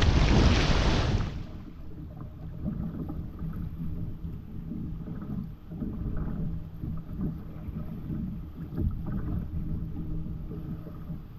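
Fast-flowing whitewater river and wind buffeting the camera microphone while a kayak is paddled through it: a loud rush for about the first second, then a sudden drop to a muffled low rumble with irregular small surges.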